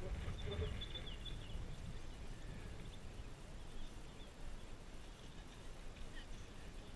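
Wind noise on the microphone, a low uneven rush that eases off slightly, with a brief high chirp about a second in.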